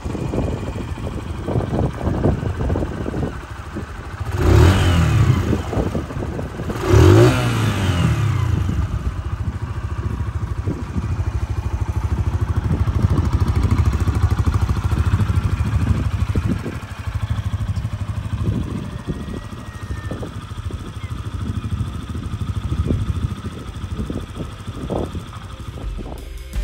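AJS Tempest Roadster 125's air-cooled 124 cc single-cylinder four-stroke engine idling, blipped twice a few seconds in, the pitch rising and falling back each time.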